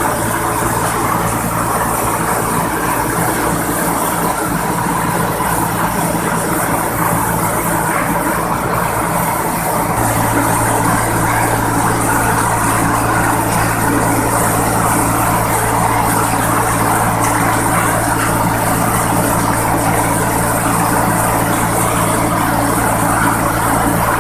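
Engine of a rice milling machine running steadily, with a low hum that steps up and grows stronger about ten seconds in.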